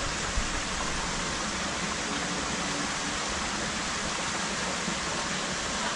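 Steady rush of running water, an even hiss with no breaks or separate sounds.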